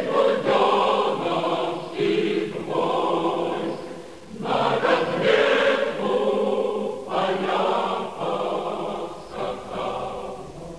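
Choir singing in several long, held phrases, fading near the end.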